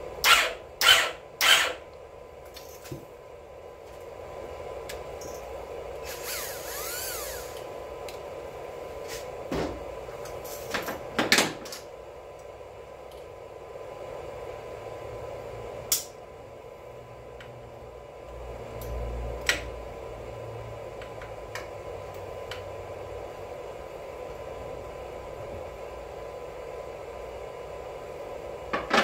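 Cordless drill run in three short bursts, a brief whir about six seconds in, then another cluster of bursts and scattered clicks and clinks of tools and metal engine parts being handled, over a steady background hum.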